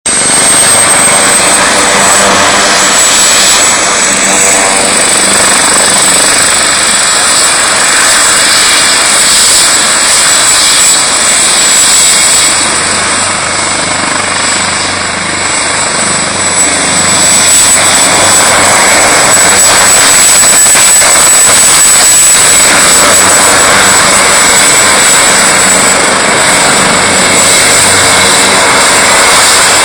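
Helicopter running on the ground with its main rotor turning as it taxis, a steady high-pitched turbine whine over loud engine and rotor noise. It dips slightly in loudness about halfway through as the aircraft turns.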